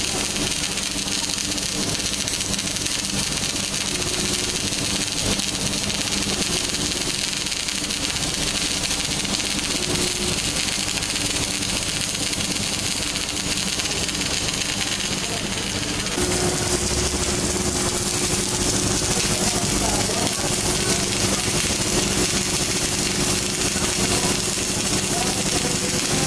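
Electric arc welding: the arc crackles and hisses steadily as a bead is laid. About two-thirds of the way through the sound changes to another welder's arc, with a steady low hum under it.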